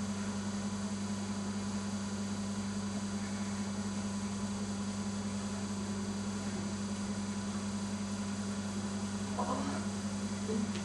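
Steady low electrical hum, like mains hum from a sound system. A faint short sound comes about nine and a half seconds in.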